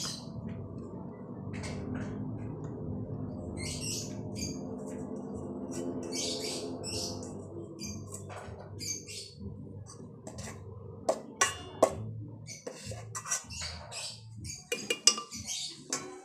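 Electric countertop blender's motor running on a thick cassava and jackfruit batter, a steady hum that dies away about eight to ten seconds in. Sharp clicks and knocks follow, with short high squeaky chirps recurring throughout.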